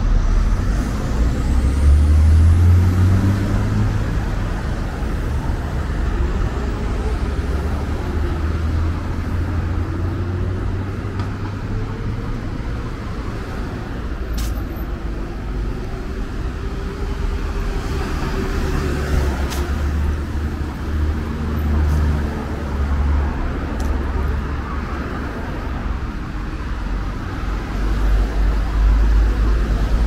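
City street traffic: cars passing on a multi-lane avenue with a steady low engine rumble, their engine notes rising and falling as they speed up and go by. A couple of short sharp clicks cut through about halfway in.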